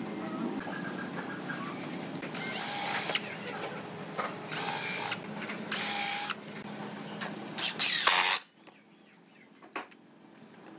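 Cordless drill boring into a pine chair seat with a countersink bit, in four short runs of a second or less, the first rising in pitch as it spins up.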